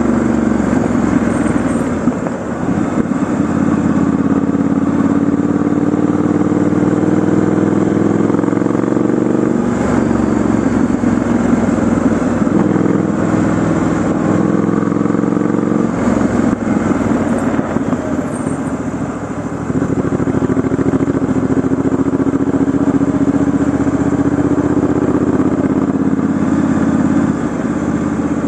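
Triumph Scrambler 1200 XE's 1200 cc parallel-twin engine running while the motorcycle is ridden, its note falling and rising again several times as the throttle eases off and picks back up.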